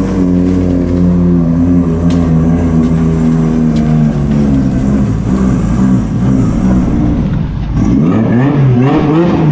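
Nissan RB25DET turbocharged straight-six engine running at low revs as the S15 Silvia rolls slowly across the car park, its pitch stepping gently up and down and wavering more near the end.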